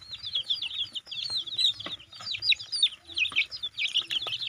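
Feeding poultry: many chicks peeping over one another in quick, high, falling chirps, with a few low clucks from the hens.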